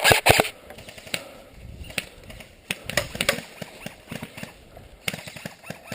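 Airsoft gunfire: a quick run of sharp cracks at the start, then scattered single clicks and knocks, with a few more cracks about five seconds in.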